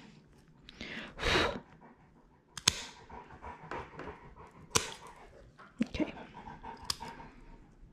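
A St Bernard panting, with three sharp clicks of pet nail clippers cutting through her long nails, about two seconds apart.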